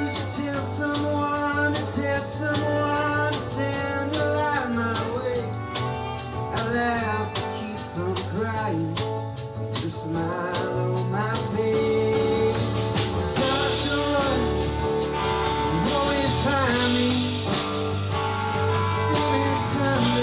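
A band playing a song: a singer's voice carrying the melody over guitar, bass and a steady beat.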